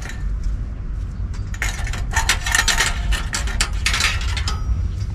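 Metal camping-stove parts clinking and scraping together as a one-burner stove's legs are shifted about in a stainless burner frame and pot support that it won't sit in properly. A quick, dense run of metallic clicks and clinks comes from about a second and a half in to about four and a half seconds in, over a steady low background rumble.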